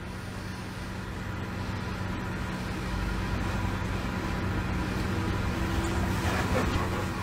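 Steady low hum under an even background noise, growing slightly louder, with no clear animal sound.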